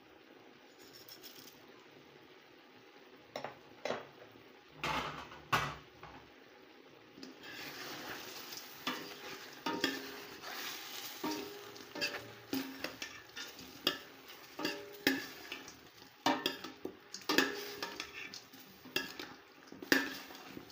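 Chicken pieces sizzling in a stainless steel pot while a utensil stirs them, scraping and clinking against the metal many times. A few separate knocks come in the first several seconds, before the sizzling and stirring start about seven seconds in.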